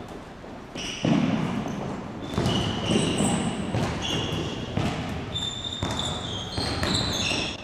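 A basketball bouncing and being caught on a hardwood gym floor, several thuds, with basketball sneakers squeaking in short high-pitched chirps from about two seconds in.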